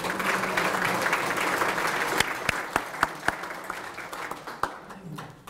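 Audience applauding. The clapping is dense at first, thins after about two seconds to a handful of scattered claps, and dies away near the end.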